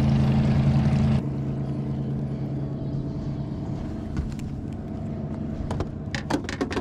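Boat motor running steadily, then stopping abruptly about a second in. After it, a quieter stretch of low background noise with a few short, sharp sounds near the end.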